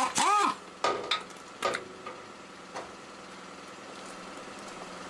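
Air impact wrench whirring briefly up and then down at the start, followed by a few scattered metallic knocks as tools and bolts are handled on the concrete.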